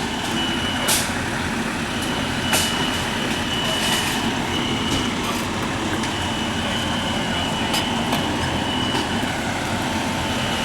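Fire alarm sounding a thin, high-pitched tone that cuts in and out every second or so, over a steady background rumble, with a few sharp clicks.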